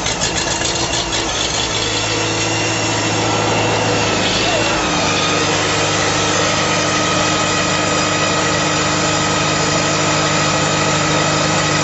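Farmall 200 tractor's four-cylinder engine running at idle just after a cold start, its note shifting about five seconds in and then holding steady.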